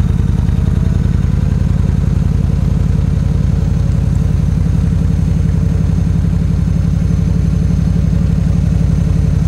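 Yamaha V Star 1300's V-twin engine running at low road speed as the motorcycle rolls slowly, a steady low rapid pulsing.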